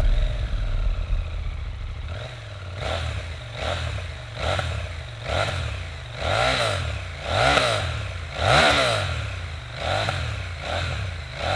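KTM 890 Duke R's parallel-twin engine idling just after starting, then revved in about nine short throttle blips, each rising and falling in pitch, roughly one a second, the strongest in the middle.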